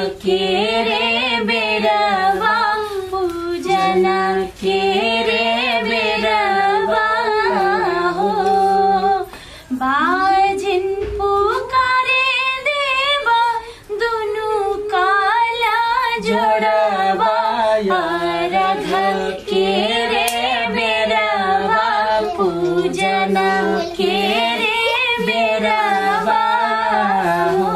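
Women singing a Chhath folk song, the devotional song addressed to the sun god.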